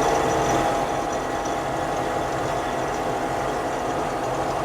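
A combine harvester running steadily while harvesting wheat: a constant drone from the engine and threshing machinery, with a steady hum over it.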